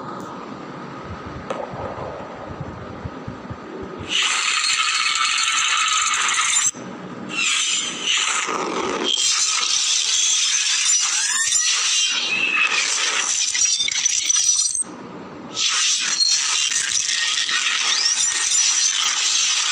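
Designed sound effects for an animated logo intro: a low rumble for about four seconds, then a sudden loud hissing noise that runs on with two short drops, one near seven seconds and one near fifteen.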